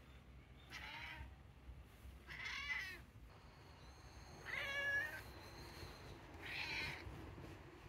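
A domestic cat meowing four times, about two seconds apart. Each meow is short and bends in pitch, and the third is the loudest.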